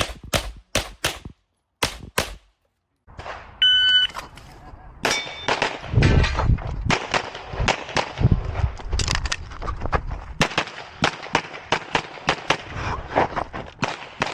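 Handgun shots fired in quick strings, roughly three to four a second, with a brief pause after about two seconds. Near the middle a short ringing tone sounds, and then another rapid string of shots follows.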